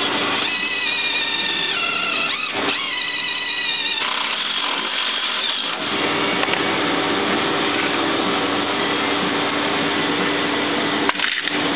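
Cordless drill driving bolts into a UTV skid plate: two short spurts of high motor whine in the first four seconds, the pitch stepping down as the bolt seats. A steady whirring runs underneath, and there is one sharp click near the end.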